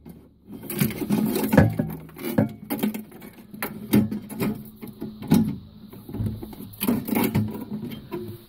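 Irregular clicks, knocks and rattles of a fruit machine's circuit board being handled and pushed into its tray and retaining clips.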